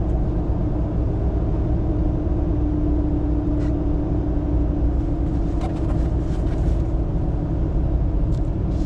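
Ram TRX's supercharged V8 and its road noise heard from inside the cab while driving: a steady engine and exhaust drone over road rumble, with a few faint clicks and creaks from the cabin.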